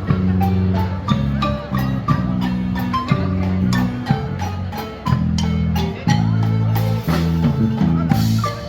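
Music played on marimba, with struck mallet notes over held bass notes and light percussion keeping a steady rhythm.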